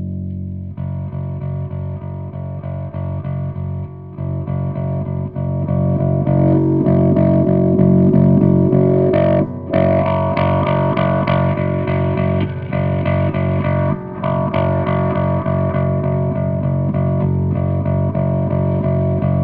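Electric bass played through a Tailor Made Pedals Destroy Necropolis pedal into Peavey cabinets, a heavily distorted sound with held low notes and fast repeated picking. It gets louder about six seconds in and cuts out briefly twice, near the middle and again a few seconds later.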